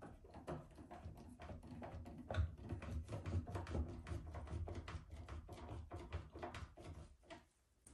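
Manual screwdriver turning a screw through a metal face-mount cabinet hinge into the wooden cabinet frame: a faint run of irregular small clicks and light scraping.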